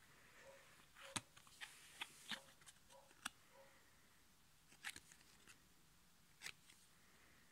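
Quiet handling of glossy trading cards: a few light, sharp clicks and snaps as a card is picked up and turned over in the fingers.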